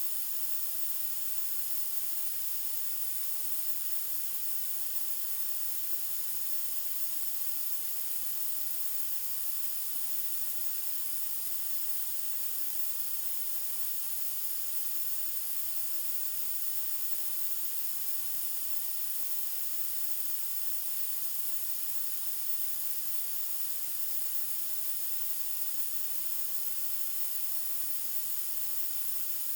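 Synthetic white noise: a steady, even hiss, strongest in the highs and unchanging throughout.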